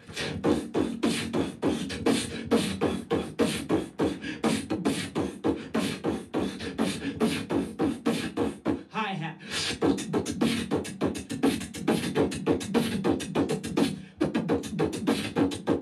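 Live beatboxing amplified through a handheld microphone: a fast, dense run of mouth-made drum hits, kicks, snares and hi-hat clicks. About nine seconds in the beat briefly breaks for a wavering pitched vocal sound, then carries on.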